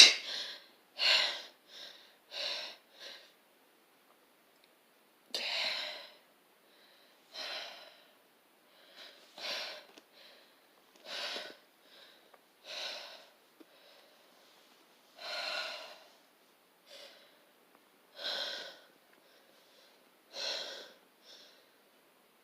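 A sneezing fit: a loud sneeze at the very start, then short, breathy sneezes, sniffs and gasping breaths every second or two, with a few pauses of two or three seconds.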